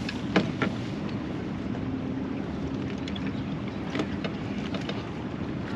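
A boat motor running steadily with a low hum under wind noise on the microphone, with a few light clicks.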